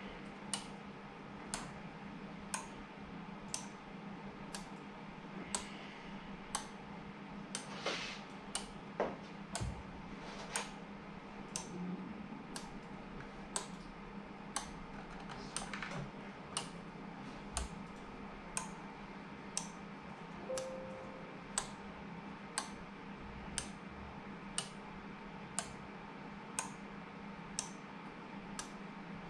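Steady ticking, one sharp tick about every second, over a low steady hum, with a few soft knocks in between.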